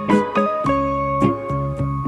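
Background music: plucked guitar or keyboard notes playing a melody over chords.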